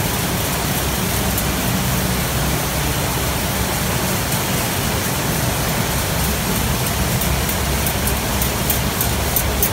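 Marel/Stork Nuova poultry evisceration line running: a steady loud mix of machine rumble and water spraying. Rapid high ticking joins in over the last few seconds.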